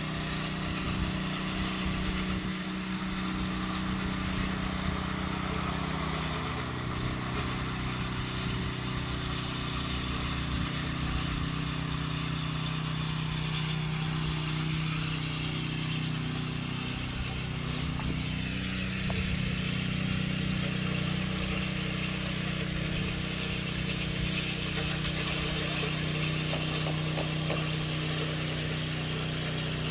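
Engine of a site machine running steadily at a constant speed, with some mechanical rattle over it.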